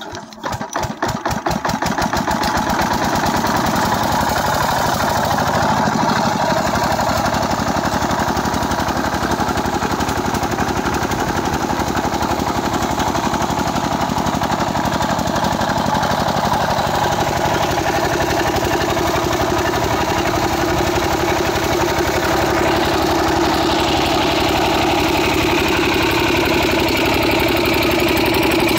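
Single-cylinder 8 hp diesel engine of an irrigation pump set, hand-cranked and catching at the very start. It picks up speed over the first two seconds, then runs with a steady, even chug as it drives the water pump.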